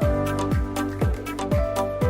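Upbeat electronic dance music with a steady kick drum about twice a second under bright sustained synth chords.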